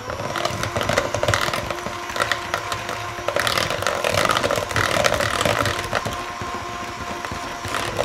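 Cordless electric hand mixer running steadily, its beaters whirring through cheesecake filling and clicking against the plastic mixing bowl.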